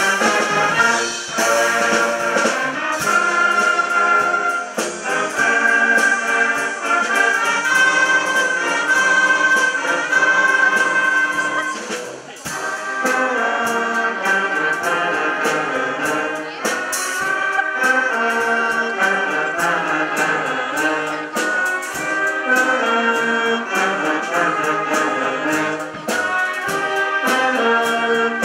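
Wind band playing live: brass carries a sustained melody over a steady beat of sharp percussive ticks. The music dips briefly about twelve seconds in.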